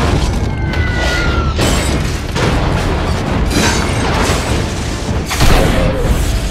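Blockbuster film explosion sound effects: a string of heavy booms and blasts, the loudest about five and a half seconds in. A falling whine sounds in the first second or two, and music plays underneath.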